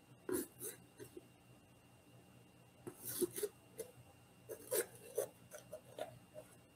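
A V-cut knife cutting a decorative zigzag around the top of a bell pepper: short, faint crunches as the blade is pushed through the pepper's crisp flesh, coming in small clusters with pauses between.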